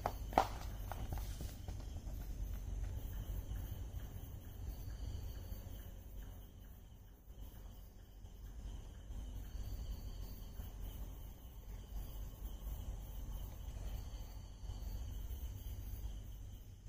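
Night insects trilling steadily, with soft chirps now and then, over a low steady rumble. A single sharp knock comes about half a second in.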